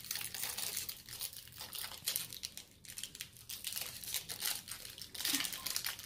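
Crinkly plastic toy wrapping crackling as it is picked open by hand, in quick irregular crackles that thin out about halfway through and get busier again near the end.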